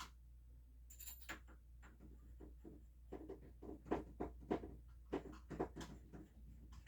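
A series of light, irregular clicks and knocks, as of hands handling small hard objects, starting about a second in.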